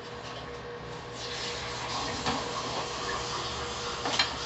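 Light clatter of a cooking pot being handled on a small table, a couple of knocks about two seconds in and a louder clatter near the end, over a steady background hiss and faint hum.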